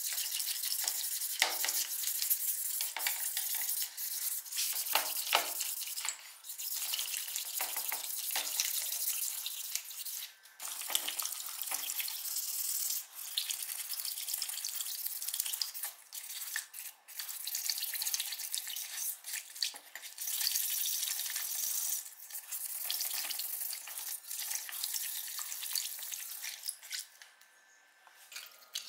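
Wet sanding: an abrasive sponge pad scrubbed back and forth over antique iron scissors under water, making a hissy scraping broken by short pauses between strokes.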